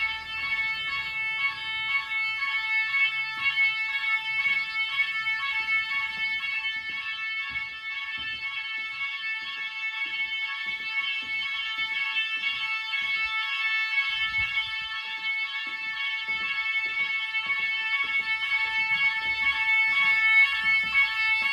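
Nugelec fire alarm sounding during a test: a continuous shrill tone with several overtones, lightly pulsing.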